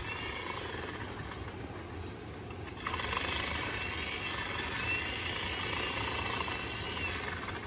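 Steady rush of a fast-flowing stream, a little louder from about three seconds in.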